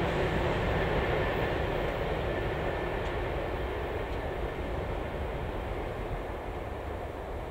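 BNSF freight train rolling away into the distance, its running noise fading steadily.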